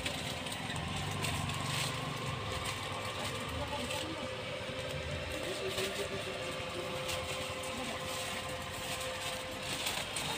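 Steady mechanical hum with a faint held tone, the low end swelling and fading, with faint voices in the background.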